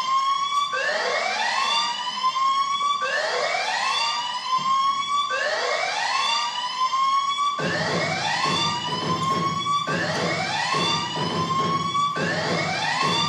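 Dance routine music opening with a siren sound effect: a rising wail repeated about every two seconds. A heavy bass beat comes in about halfway through.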